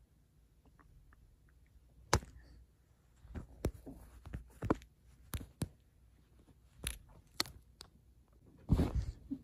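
About ten sharp knocks and scuffs come at irregular intervals from about two seconds in, with a longer rustling scuffle near the end: a Savannah cat pouncing on a fur tail toy and swatting it on a quilted bedspread.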